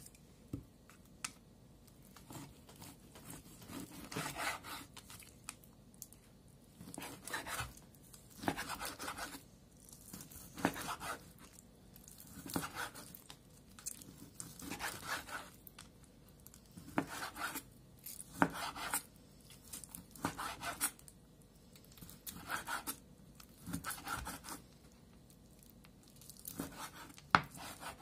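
Kitchen knife slicing raw chicken on a bamboo cutting board: a drawn slicing stroke about every two seconds, the blade now and then knocking sharply on the board.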